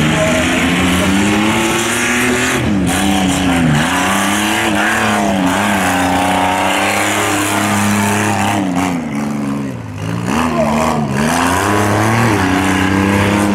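Lifted mud truck's engine at full throttle as it races down a dirt track, its revs rising and dropping several times as the throttle is worked.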